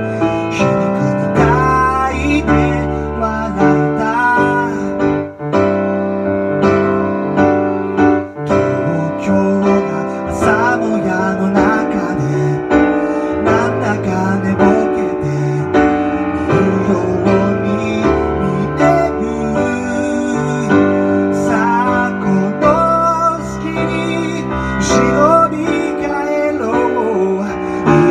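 Keyboard piano played with a male voice singing over it, in a steady ballad.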